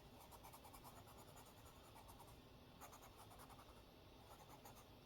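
Faint scratching of a coloured pencil on paper, in repeated short shading strokes.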